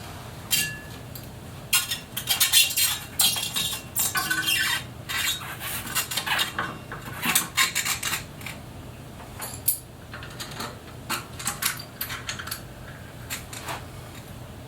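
Metal tools and bicycle fender hardware being handled: a string of sharp clinks and rattles, busiest in the first half and thinning out toward the end.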